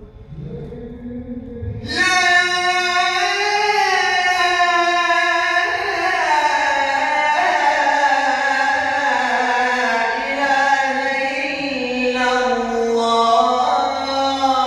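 A young man's solo voice sings the ezan, the Islamic call to prayer, in the Uşşak maqam, amplified through a hand-held microphone. A loud phrase begins about two seconds in and is drawn out as one long, ornamented line of slowly bending notes.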